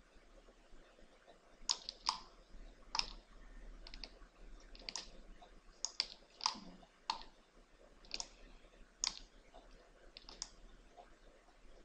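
Computer mouse and keyboard clicks: about a dozen short, sharp clicks at uneven intervals.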